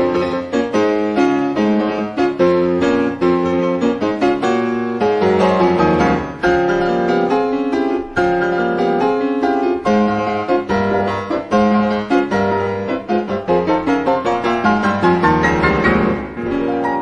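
Solo piano music: a steady flow of notes with frequent attacks, settling into a held chord that starts to fade near the end.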